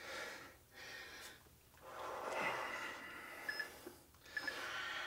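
People breathing hard while exercising with dumbbells: several long, noisy breaths in and out. Near the end come short electronic countdown beeps, about one a second.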